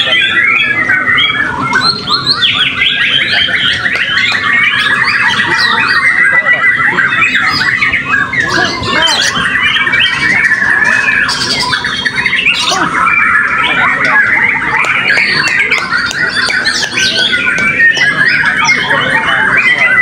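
Many caged white-rumped shamas singing at once: a loud, unbroken chorus of overlapping quick whistles, trills and chattering phrases.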